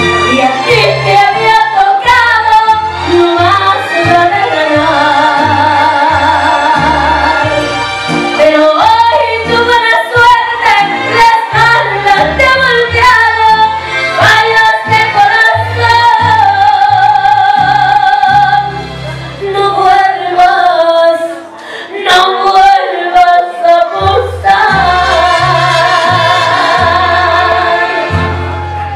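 A woman singing with a wide vibrato over a band accompaniment with a pulsing bass line. The backing drops out briefly twice, a little after halfway.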